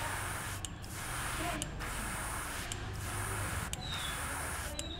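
Airbrush spraying paint onto a small wooden minnow lure: a steady hiss of air and paint that breaks off briefly about once a second as the trigger is let up, over a low hum.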